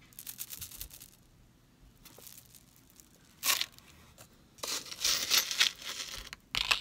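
Crinkly rustling of wrapping as pieces from a box of costume jewelry are handled, in three bursts: one at the start, a brief one about halfway, and a longer, louder one over the last two seconds.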